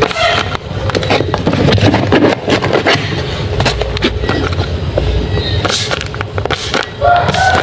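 Hands handling packaging, plastic and paper rustling and crinkling with many small clicks and taps. Near the end a few pitched tones of music come in.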